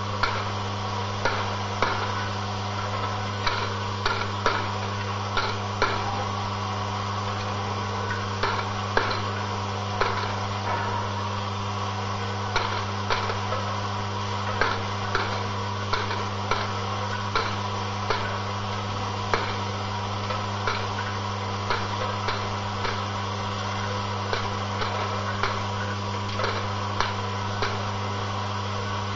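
Vibratory bowl feeder running: its electromagnetic drive gives a steady low hum, over which loose steel screws rattle and click irregularly, about once or twice a second, as they climb the spiral track and drop back.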